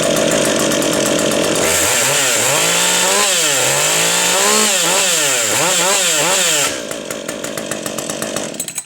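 Ported Husqvarna 562 XP two-stroke chainsaw with a dual-port muffler running at full throttle. For about five seconds its engine speed dips and recovers again and again, as it does when loaded in a cut. It then runs on more quietly for a couple of seconds and stops just before the end.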